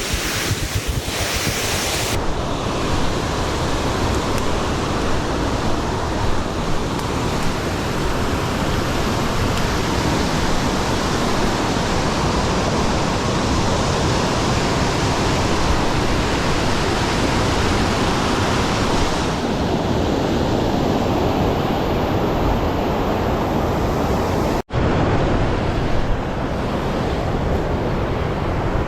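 Creek water rushing, a loud steady noise with no let-up, briefly cutting out for an instant near the end.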